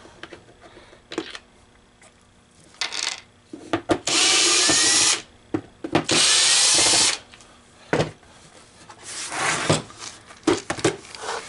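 Ryobi cordless drill/driver backing out the last two screws of a coin hopper's top cover: two runs of about a second each, two seconds apart, the motor rising in pitch as it spins up. Knocks and clatter follow as the hopper is lifted and handled.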